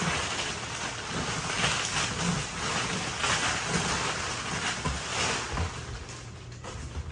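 Rustling and crinkling of packaging being handled as a box is unpacked, with a few low knocks near the end.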